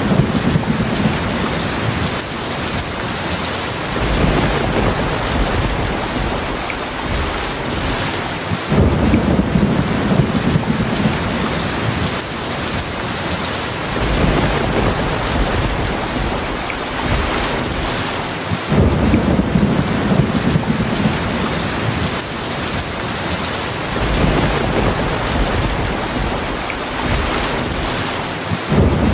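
Heavy rain falling steadily, with low thunder rumbling for several seconds at a time at roughly ten-second intervals: at the start, about nine seconds in, about nineteen seconds in, and again just before the end.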